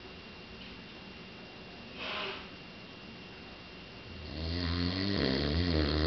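A man snoring in his sleep: a short breath about two seconds in, then from about four seconds a long, loud snore, a low buzzing drone that builds and wavers in pitch near its end.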